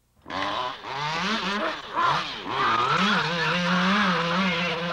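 A chainsaw engine bursts into life and runs loudly, its pitch rising and falling in quick waves as it is revved.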